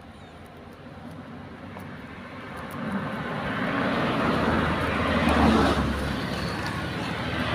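A motor vehicle passing on the road: its engine rumble and road noise swell from about three seconds in, are loudest just past the middle, then fade.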